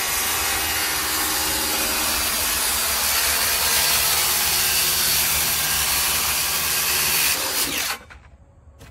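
Circular saw running and cutting across a flooring plank: a steady motor whine under the rasp of the blade through the board. Near the end the trigger is released and the blade winds down, falling in pitch.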